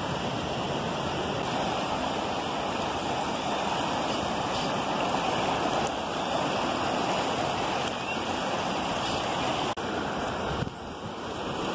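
Swollen river rushing through rocky rapids: a steady wash of whitewater noise, a little quieter near the end.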